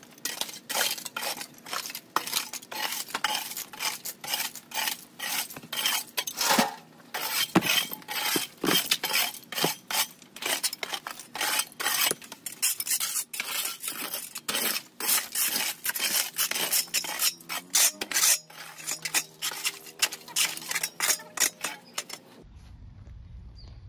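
A long-handled garden tool scraping across hard dirt ground and dragging broken shards, which clink and rattle against each other in quick repeated strokes, about two or three a second. The scraping stops abruptly near the end.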